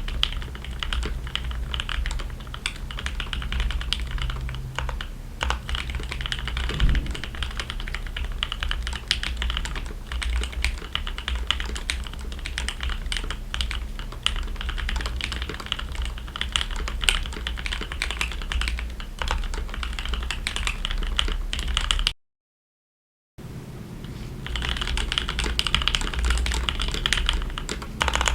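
Continuous fast typing on a mechanical keyboard with factory-lubed Gateron Oil King linear switches, in a KBD67 Lite R3 with a polycarbonate plate and clear ABS keycaps: a dense, irregular stream of keystrokes. It cuts to silence for about a second near the end, then the typing picks up again.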